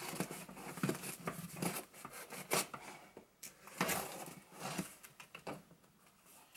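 Hands scratching and picking at the packing tape on a cardboard shipping box to open it, a run of short, irregular scratching and tearing noises.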